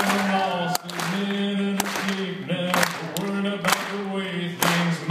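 A man singing a slow melody of long held notes into a microphone over a hall PA, with no instrumental backing, and a sharp clap-like beat about once a second keeping time.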